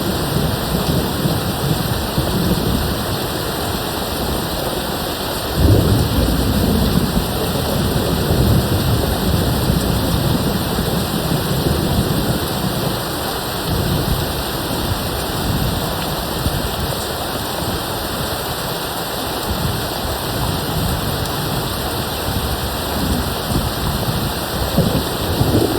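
Steady heavy rain hissing, with thunder rumbling in the background; the loudest roll comes in sharply about six seconds in, and another swells near the end.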